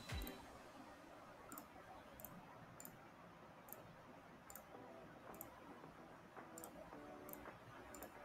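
Faint computer mouse clicks over near silence, one roughly every two-thirds of a second from about a second and a half in, as checkboxes are ticked in a spreadsheet's field list.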